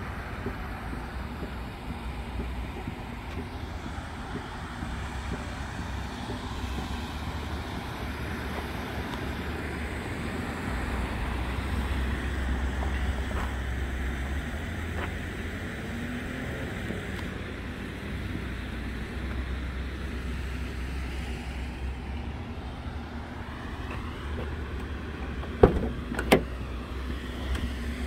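Steady low outdoor rumble. About two seconds before the end come two sharp clicks as the 2009 Nissan GT-R's driver door is unlatched and opened.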